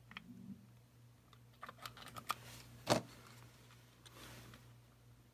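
Small scattered clicks and taps of hands handling a plastic charger housing, its circuit board and a glue tube on a workbench, with one sharper click about three seconds in, over a low steady hum.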